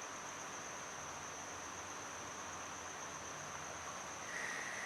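Quiet room tone: a steady hiss with a constant high-pitched electrical whine and a faint low hum.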